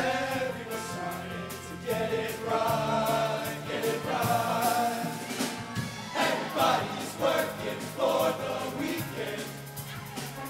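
Male show choir singing in full voice over instrumental accompaniment with a steady beat.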